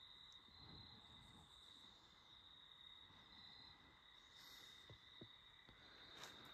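Near silence: a faint, steady, high-pitched chorus of crickets in night woods. A few faint rustles and soft knocks come in the second half, as of steps on dry leaves.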